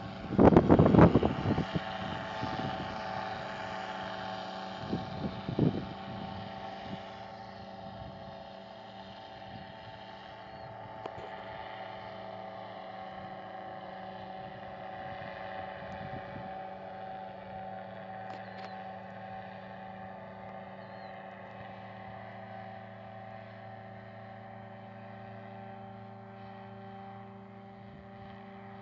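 Powered parachute's engine and propeller running steadily as the craft climbs away, growing slowly fainter with distance. A few loud gusts of wind hit the microphone in the first seconds.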